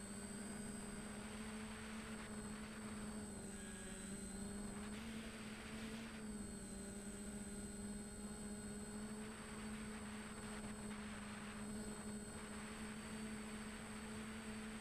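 DJI Flamewheel F450 quadcopter's electric motors and propellers humming steadily, heard from a camera on the craft, the pitch wavering slightly as the throttle changes. A hiss of rushing air swells and fades several times.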